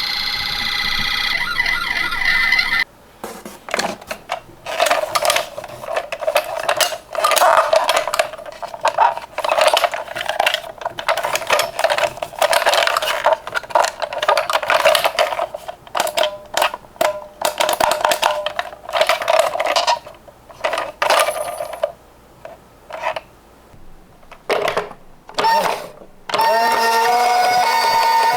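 A toy ambulance's electronic siren sounds and cuts off about three seconds in. Then comes a long run of rapid, irregular clattering and clicking: small die-cast toy cars rolling and knocking down a slope.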